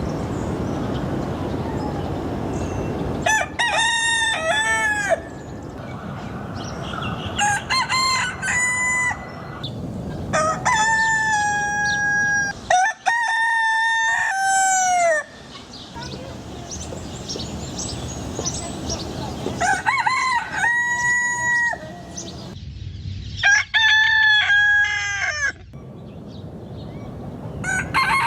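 Roosters crowing cock-a-doodle-doo, about seven crows one after another with short gaps between them. A low steady rumble comes before the first crow, which begins about three seconds in.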